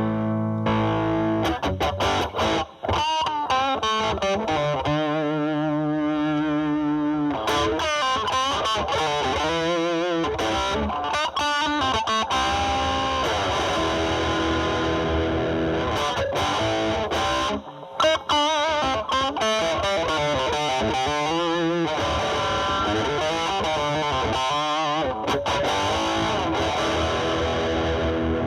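Fender Stratocaster played through a Boss DS-2 Turbo Distortion pedal in turbo mode, into a Marshall Valvestate amp's drive channel. It plays distorted electric-guitar lead lines of held notes with wide vibrato and bends, broken by a couple of brief pauses.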